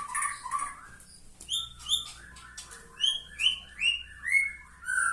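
White-rumped shamas (murai batu) chirping: groups of short, quick upward-sweeping notes, several in a row, some high and some lower.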